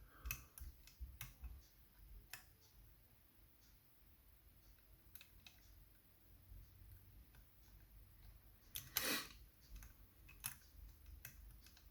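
Faint, scattered clicks of lock-picking tools working the levers inside a Chubb 3G107 seven-lever lock, with a louder click about nine seconds in.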